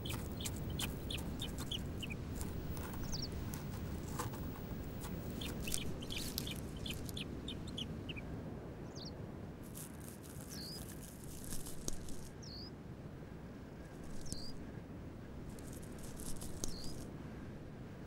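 Hungry buzzard chick begging with short, high, thin peeps every second or two, mostly in the second half, over a low steady hiss with scattered faint clicks in the first few seconds.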